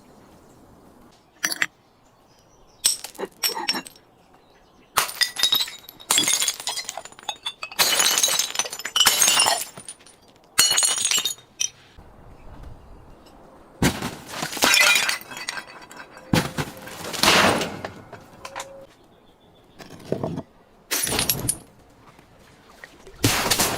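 Glass bottles breaking and the shards crunching, in a string of separate bursts a second or two long with short pauses between them.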